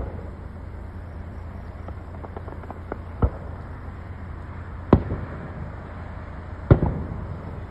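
Fireworks going off: three sharp bangs, a little over three, about five and nearly seven seconds in, the last the loudest, with a few faint pops between them.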